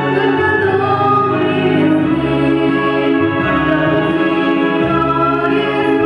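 A song being performed: long, held sung notes with choir-like voices over a backing track with steady bass notes.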